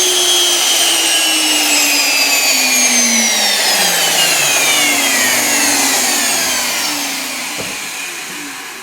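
Home-built vacuum cleaner made from three vacuum cleaners, its motors whining and spinning down after switch-off: the whine falls steadily in pitch, faster after a few seconds, and the rush of air dies away toward the end. A single click comes near the end.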